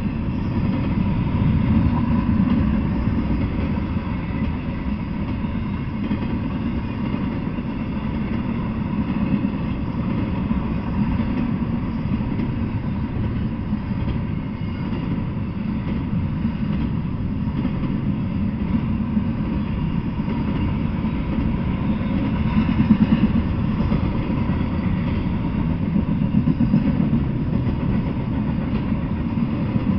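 Double-stack intermodal freight train passing: a steady low rumble of steel wheels rolling on rail, briefly louder about three-quarters of the way through.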